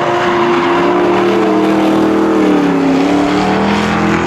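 Two drift cars running hard in tandem, their engines held at high revs. The pitch sags about three seconds in, then climbs again as they are revved back up.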